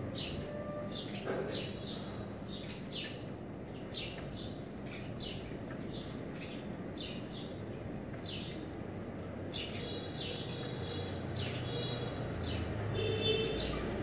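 Eurasian tree sparrows chirping: short, downward-sliding chirps repeated about once or twice a second, over a steady low background noise.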